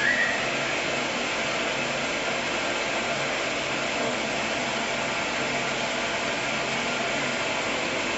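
Steady whooshing noise with a faint low hum underneath, even in level throughout, like a fan or blower running.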